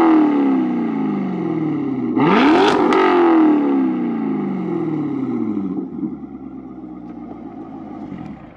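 Chevrolet C7 Corvette Grand Sport's 6.2-litre V8 through an AWE Touring Edition cat-back exhaust, revved with no load. The tail of one rev falls away at first. About two seconds in, a quick stab of throttle sends it sharply up to about 6,000 rpm, and it then drops slowly back to a lower, steady idle around six seconds in, with a deep growl.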